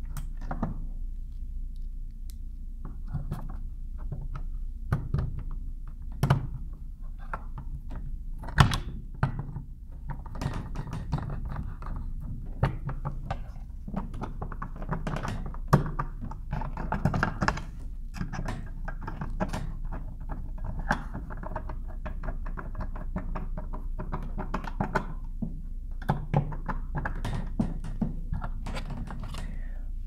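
Scattered clicks, taps and knocks of plastic and metal parts as an outlet extension box base is fitted over a wall receptacle and worked with a screwdriver, with busier rattling stretches and one sharper knock about nine seconds in.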